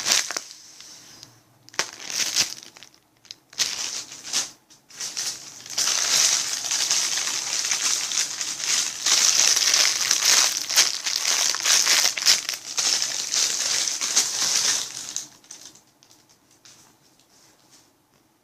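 Plastic packaging bag crinkling as it is handled and opened: a few short rustles at first, then a long spell of continuous loud crinkling that dies away near the end.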